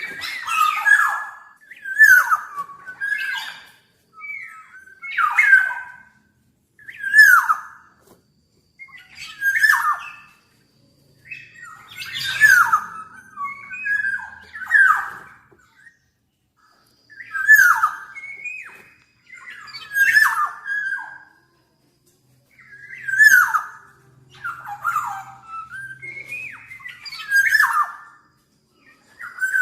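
A black-naped oriole (kepodang) calling over and over, with a short call every two to three seconds. Each call slides down in pitch and has a harsh edge.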